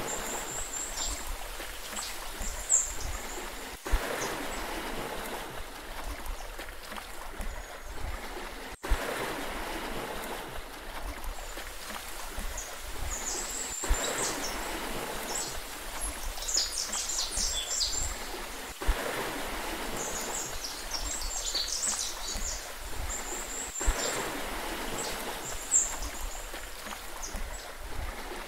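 Sea water washing steadily, with small birds chirping high above it in scattered short runs. A sharp click cuts through about every five seconds.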